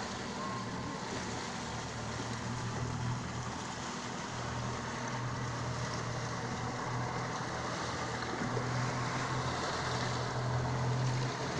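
Small motorboat's engine running steadily, a low hum under wind and water noise.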